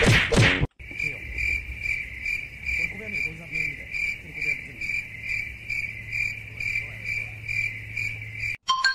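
Music cuts off in the first second, then a steady high insect-like chirping pulses about three times a second over a faint low hum, ending abruptly near the end.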